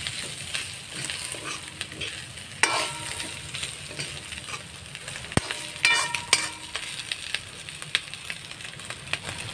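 Boiled beef pieces with onion and green chilli frying in a metal kadhai with a steady sizzle, while a metal spatula stirs them, scraping and clinking against the pan. The clinks ring briefly twice, about a third of the way in and past the middle.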